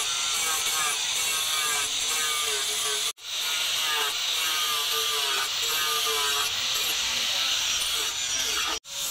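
Angle grinder with an abrasive disc grinding a steel machete blade: a steady motor whine over a gritty hiss, its pitch wavering as the disc is pressed on. The sound cuts off abruptly twice, about three seconds in and just before the end.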